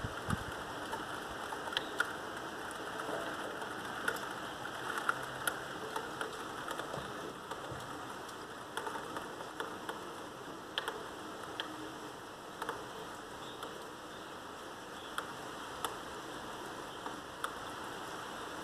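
Steady rain that has eased off a little, with scattered sharp ticks of single drops striking close to the microphone.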